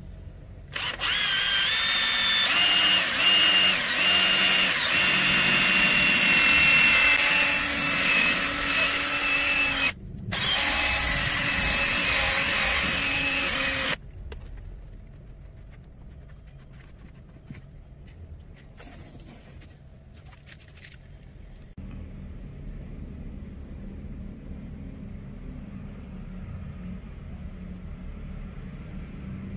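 An electric drill spinning a foam polishing pad against car paint, its motor whine shifting slightly in pitch as it works: the polishing stage of a paint correction. It runs from about a second in, stops briefly about 10 s in, and stops about 14 s in.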